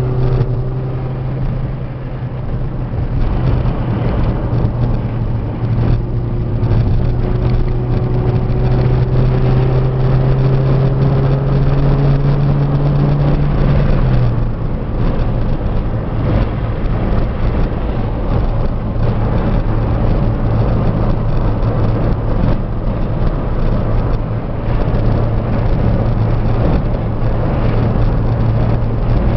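Ford Fiesta 1.6 engine heard from inside the cabin, pulling up a mountain grade over steady road noise. Its note climbs slowly, drops suddenly about halfway through, then holds steady.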